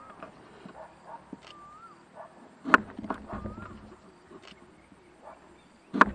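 Kitchen knife cutting limes on a wooden cutting board: two sharp knocks of the blade striking the board, about three seconds apart, with a few fainter taps between them.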